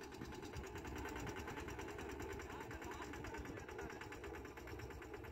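Small engine of a rail motor trolley running faintly with a fast, even ticking beat over a low rumble.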